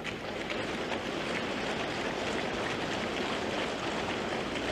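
Audience applauding, a steady dense clapping that keeps an even level throughout.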